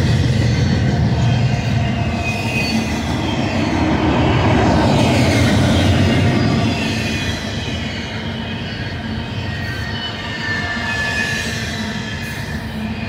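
Double-stack container well cars of a freight train rolling past: a steady rumble of steel wheels on rail, with thin high-pitched wheel squeals coming and going above it. The noise drops a little after about six seconds.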